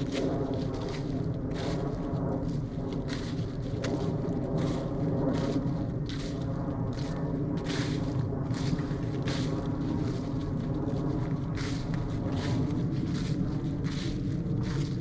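Footsteps crunching through dry fallen leaves at a walking pace, about two steps a second. Under them runs a steady low drone of an airplane overhead.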